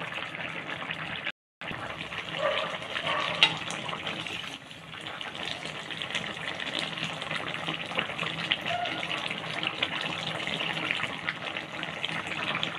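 Fish and vegetable curry boiling in an open pan: a steady bubbling hiss full of small pops, which drops out to silence for a moment about a second and a half in.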